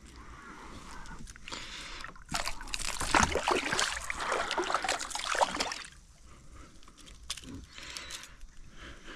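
Water splashing and sloshing loudly for about three and a half seconds in the middle, with softer trickling before and after.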